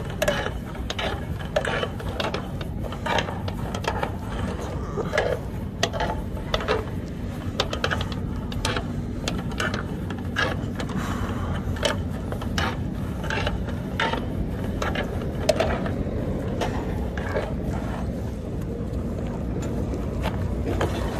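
Customs cable being threaded through the metal eyelets and buckles along a curtainsider trailer's curtain: irregular metallic clicks and rattles of the cable and rings being handled, over a steady low rumble.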